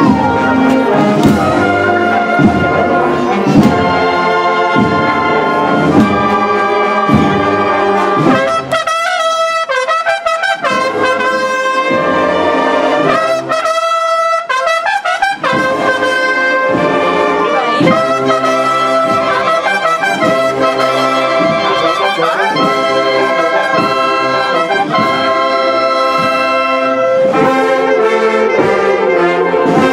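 A procession band of trumpets, trombones and drums playing a slow Holy Week processional march, the drum beat marking a slow pulse. About a third of the way in the band drops to a thinner, softer passage for several seconds before the full band comes back in.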